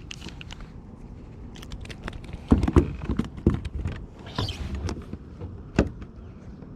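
Handling noise aboard a fishing kayak: a run of irregular knocks and clicks, loudest about two and a half seconds in and again near six seconds.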